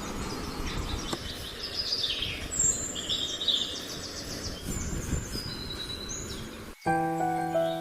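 Several birds chirping and calling in short high notes over a steady low background noise. Near the end the sound cuts off abruptly and music begins.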